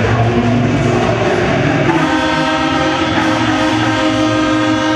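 Arena goal horn sounding: a loud chord of steady tones that swells about two seconds in and holds.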